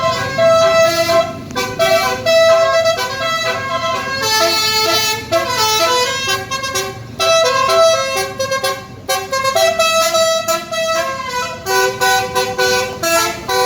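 Bus 'basuri' telolet horn, a roof-mounted set of air-horn trumpets, playing a quick tune of stepping notes, often several pitches at once. It breaks off briefly about nine seconds in.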